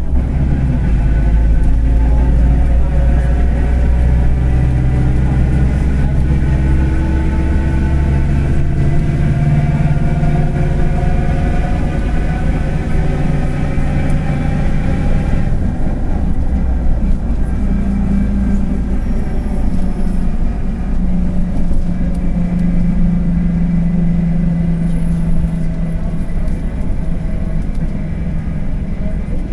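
Mercedes-Benz OF-1721 BlueTec 5 city bus under way, its diesel pulling with a pitch that rises steadily for about fifteen seconds. Halfway through, the upper notes cut off suddenly and it settles into a lower, steady drone. A growling bearing, which the uploader points out, sounds along with the engine.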